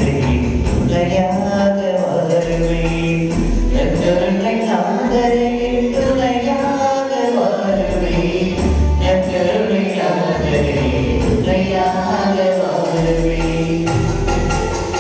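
Devotional hymn singing with instrumental accompaniment.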